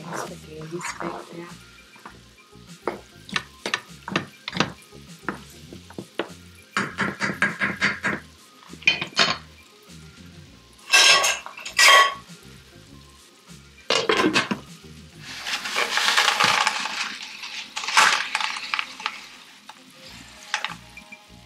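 Wooden spoon stirring and scraping a thick meat sauce in a skillet, with short knocks and a quick run of strokes. Partway through come two loud ringing metal clanks of pots or a lid, then a stretch of hiss.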